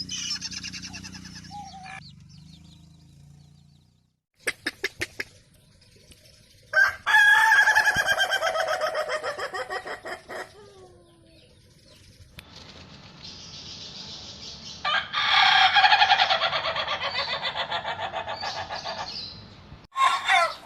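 Rooster crowing twice, each crow lasting about three to four seconds and fading toward its end. A few sharp clicks come shortly before the first crow.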